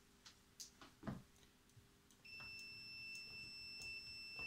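Digital multimeter set to diode test, its buzzer giving one steady high-pitched beep for about two seconds from about halfway in, the meter's signal of a near-zero reading. A few light clicks of handling come before it.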